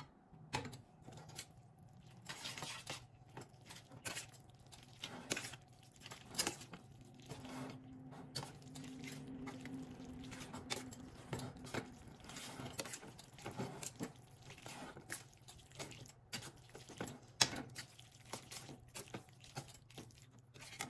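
A slotted spoon stirring and tossing spaghetti in a cream sauce in a stainless steel skillet: irregular scrapes and clinks against the pan with wet squishing of the noodles. A low steady hum runs underneath.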